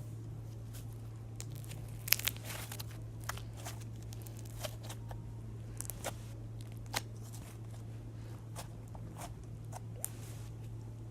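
Slime being squeezed and pressed by hand, giving scattered crackling, crunchy pops, with the loudest cluster about two seconds in.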